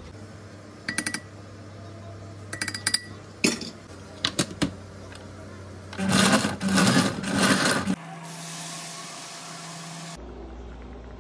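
A few clicks and knocks as the blender jar and lid are handled, then a countertop blender running for about two seconds, pureeing tomatoes and chiles for a salsa. After that comes a steadier, quieter hiss that stops suddenly.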